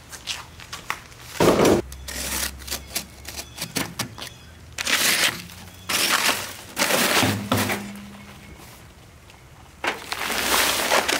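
Work with paper bags of concrete mix: crinkling and tearing paper, knocks and thuds, and several noisy rushes about a second long.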